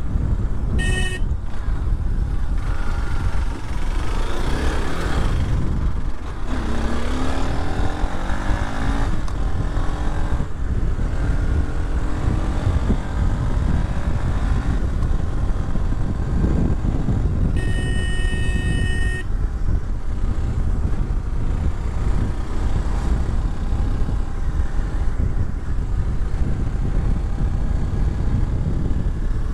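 Motorcycle riding along a winding road: a steady low wind-and-engine rumble, with the engine pitch sliding up and down through the middle as the rider works the throttle and gears. A horn sounds briefly about a second in and again for about a second and a half around eighteen seconds in.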